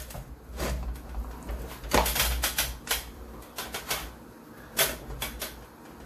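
Sprint car tire being rolled onto an aluminum Keizer wheel by hand: an irregular series of clicks and knocks as the rubber bead is worked over the rim.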